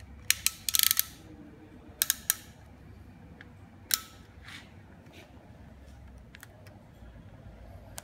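Plastic bike phone holder clicking and snapping as a phone is pressed into its clamp and adjusted by hand. Sharp clicks come in bursts: a quick run in the first second, three about two seconds in, one near four seconds, then a few faint ones.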